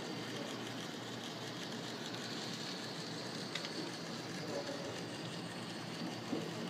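Hornby OO gauge GWR Dean Goods 0-6-0 model locomotive running along the track, a steady whir of its small electric motor with the light rattle of its wheels on the rails. There is a short click about three and a half seconds in.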